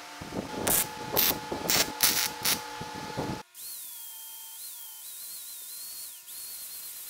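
About five short, noisy strokes, then an angle grinder's high whine. The whine's pitch drops each time the disc bears on the welded steel tube and climbs back as the pressure eases.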